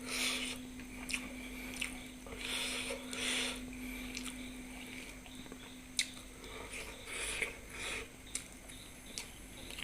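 Close-miked eating sounds: chewing and mouth clicks, with several short hissing breaths between them, over a steady low electrical hum.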